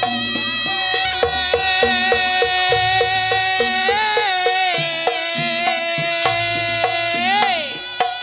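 Reog accompaniment music: a slompret, the reed shawm of the Reog band, holding one long note that wavers about halfway through and glides up then drops near the end, over a steady beat of drums and gongs.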